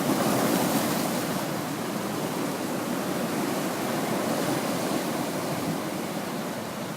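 Pacific Ocean surf breaking against sea cliffs: a steady rush of water, loudest in the first second or so and then easing off a little.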